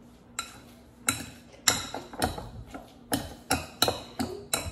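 Wire potato masher pounding boiled sweet potato cubes in a glass bowl, each stroke knocking against the glass: a run of sharp clinks, sparse at first and then about two to three a second, coming quicker toward the end.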